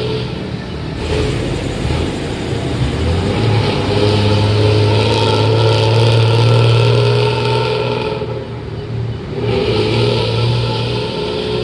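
Diesel bus engines with growling 'ngorok' exhausts running under load up a steep climb, a steady deep drone. It drops away briefly about eight seconds in and then picks up again.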